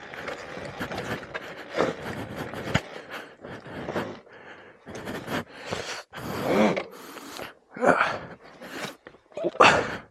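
A person breathing hard and loud, out of breath, with heavy gasping breaths coming about once a second in the second half.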